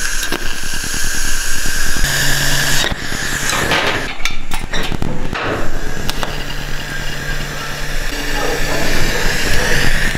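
TIG welding arc on an exhaust pipe joint: a steady hiss with a fine crackle running through it and a low hum underneath.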